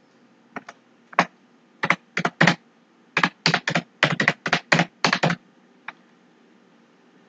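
Computer keyboard typing: a few scattered keystrokes, then a quick run of about a dozen, stopping about six seconds in.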